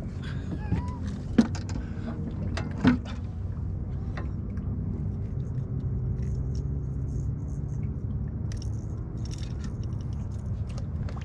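Boat motor running steadily at trolling speed, a low hum, with two sharp clicks in the first few seconds and light metallic jingling and ticking in the second half.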